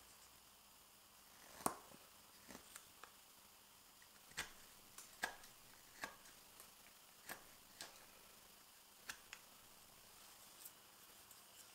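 Morakniv 106 carving knife slicing shavings off a fresh maple spoon blank: short, sharp cutting snicks at irregular intervals, about a dozen, the loudest about two seconds in, over near-silent room tone.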